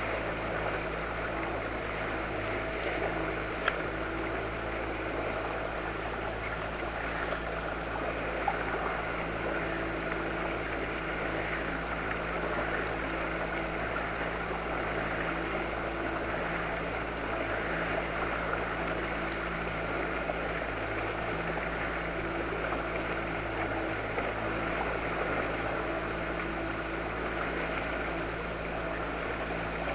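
Outboard motor on an inflatable boat running at a steady trolling speed, with water rushing past the hull. Two sharp clicks cut through, the louder one about four seconds in and another about eight seconds in.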